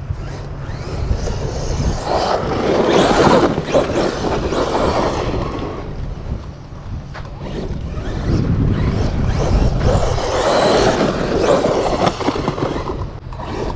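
Arrma Outcast 8S EXB electric RC truck driving through brush and dirt, its tyres and body crashing through bushes with rustling and crackling branches, in two louder stretches.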